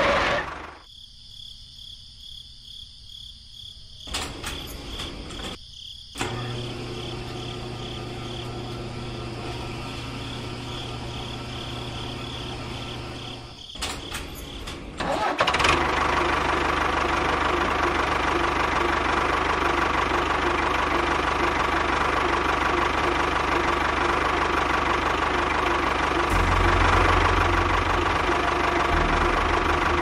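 Tractor engine running steadily. It drops low about a second in and comes back in steps, running louder and steady from about fifteen seconds in.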